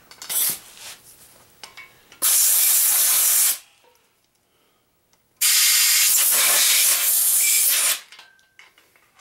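Compressed-air blow gun blowing out an engine block: two long, even hissing blasts, the first about a second and a half and the second about two and a half seconds, with a short puff just before them.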